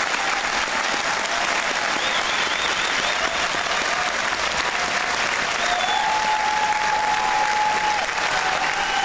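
A large theatre audience applauding steadily.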